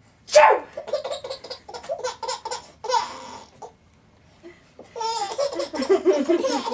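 A woman's short, loud pretend sneeze, then a baby laughing in quick repeated bursts. After a pause of about a second, the baby laughs again near the end.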